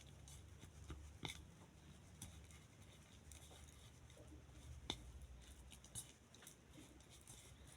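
Faint handling sounds of sawdust and white glue being kneaded by hand like dough, with a few small clicks, the sharpest about five seconds in; otherwise near silence.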